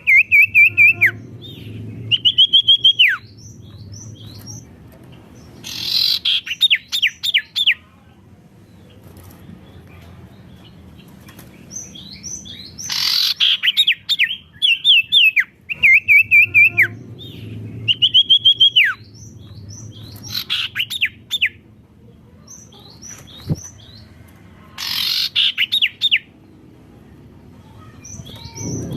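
A sirtu songbird singing loudly in repeated phrases: a held high whistle that drops sharply at its end, followed by a quick run of short falling chirps, with pauses of a few seconds between phrases.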